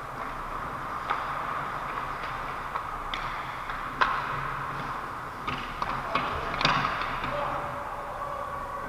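Ice hockey play in an indoor arena: skates scraping on the ice under a steady haze, cut by a series of sharp clacks of sticks and puck, the loudest about four seconds in and again about six and a half seconds in.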